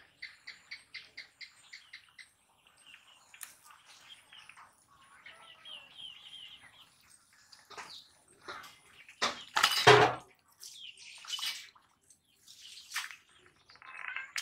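Small birds chirping, with a rapid series of high notes at the start and scattered trills after it. About two-thirds of the way in comes one loud splash of water, a caught fish thrashing in a bucket of water.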